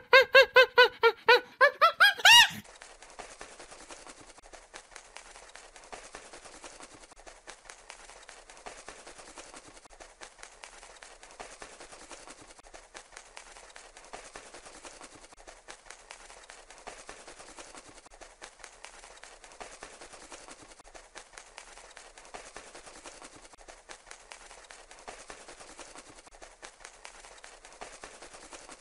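A primate's rapid series of loud squealing calls, about three or four a second and rising in pitch, stops about two and a half seconds in. Faint outdoor ambience with light irregular clicking follows.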